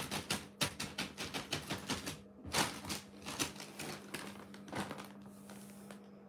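Thin plastic bag crinkling in rapid, irregular crackles as a cat paws at and stands on it, thinning out after about five seconds.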